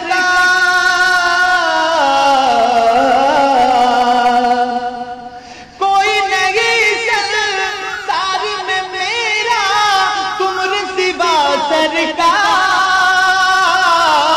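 A man singing a naat in a long, wordless, melismatic passage, his held notes wavering with vibrato. The sound fades about five seconds in, then picks up again a second later with more ornamented runs.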